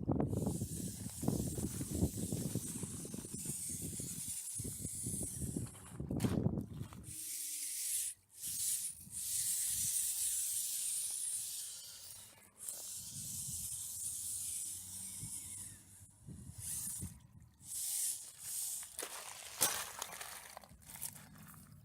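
Steady hiss of a small flowing meltwater stream, broken by short gaps, with wind buffeting the microphone for the first several seconds.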